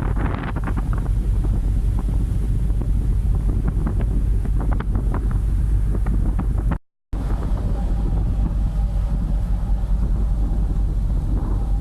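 Heavy wind buffeting the microphone aboard a moving ferry, with a dense low rumble throughout. The sound cuts out completely for a moment about seven seconds in.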